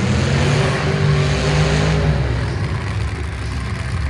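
Demolition derby car engine revving hard for about two seconds, then dropping back to a lower, steady running over the rumble of other engines. The revving fits a car stuck in the wreck and trying to drive itself free.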